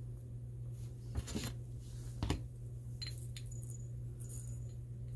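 Tiny nail-art rhinestones tipped out of a small glass vial into a white paint palette: a few light, separate clinks and rattles as they land.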